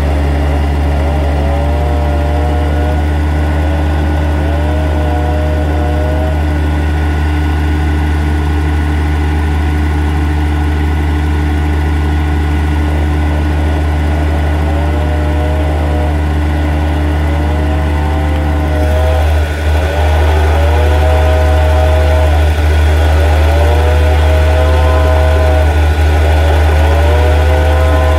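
Bulldozer diesel engine running steadily, with a short warbling squeal that recurs every two to three seconds; it grows a little louder about two-thirds of the way through.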